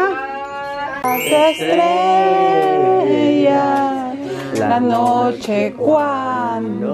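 A Spanish-language Christmas song: a singing voice over instrumental backing.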